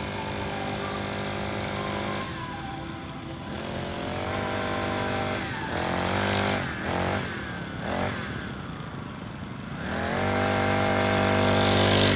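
Small 40cc pocket dirt bike engine revving as it is ridden. It goes up and down in pitch several times with quick throttle blips, then revs up and grows loudest near the end as the bike comes up close.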